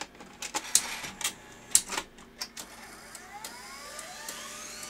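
Sony DVW-A500P Digital Betacam deck taking in a cassette: a string of mechanical clicks and clunks from the cassette carriage and loading mechanism, then a rising whine as its motors spin up, settling into a steady whine near the end.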